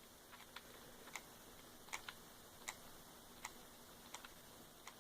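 Near silence with faint, light clicks, roughly one every three-quarters of a second, with a few softer clicks in between.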